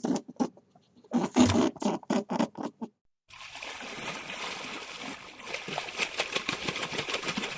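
Short, irregular bursts of sound for about three seconds. Then, after a sudden cut, water splashing and trickling steadily.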